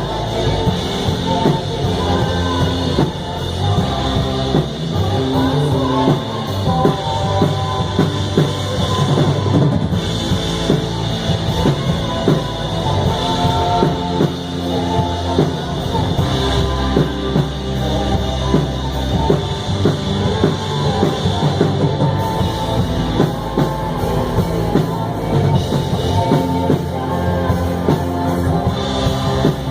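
A band playing a song in rehearsal, with a drum kit prominent under the other instruments.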